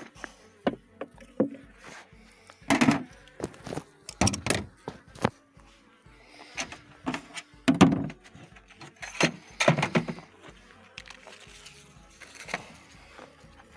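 Wooden beehive parts and a plastic frame feeder knocking and scraping as they are handled and set down, in irregular clusters of sharp clatters. Insects buzz faintly in between.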